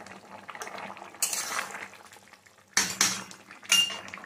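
A metal spatula stirring a thin potato curry in a metal kadai, with a wet scrape through the sauce. About three seconds in come three sharp knocks of the spatula on the pan; the last one rings briefly.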